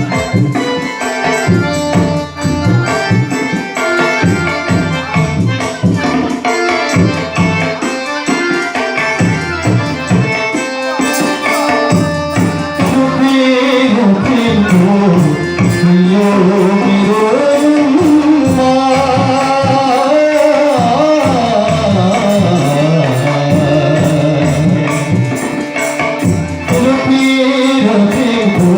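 Nepali song with tabla-led percussion and instruments; about halfway through, a voice comes in singing a held, gliding melody over the accompaniment.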